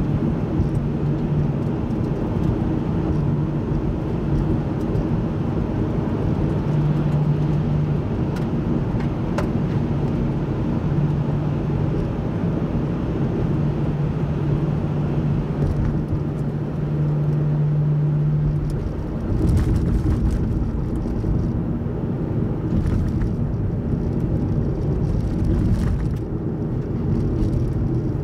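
A car driving at a steady speed: engine drone and tyre rumble on the road. A steady hum rides over the rumble and drops out about two-thirds of the way through, and a few light clicks follow.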